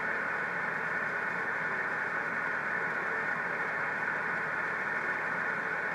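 Steady receiver hiss on a 6-metre (50 MHz) amateur radio transceiver in upper-sideband mode, cut off above about 2.5 kHz by the narrow SSB filter. No signal stands out of the noise while the operator listens for a weak station's reply.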